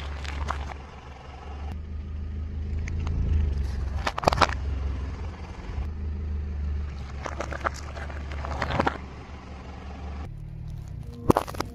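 A car tyre rolling slowly over small objects on asphalt and crushing them with sharp crackles and snaps, over the low steady rumble of the car's running engine. The loudest crunch comes about four seconds in, with more crackling around eight seconds.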